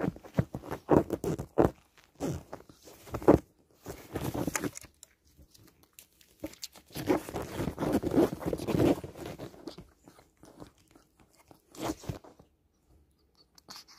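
A pet ferret scuffling and scrabbling on a wooden floor during rough play. There are spells of quick scratching, knocking and rustling separated by quiet pauses, the longest spell about halfway through.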